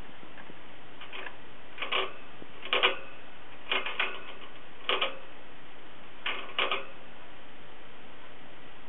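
Pet hamster climbing in its cage: its claws click and tap against the cage, about one small cluster of clicks a second, over a steady hiss.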